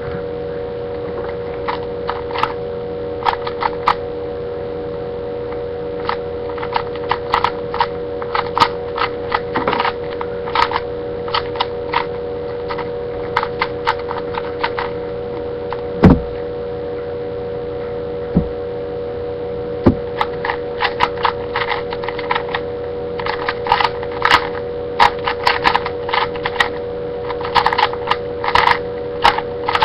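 Rubik's Cube layers being turned fast by hand: flurries of quick plastic clicks and clacks that come thicker in the second half, with one loud thump about halfway through. A steady electrical hum runs underneath.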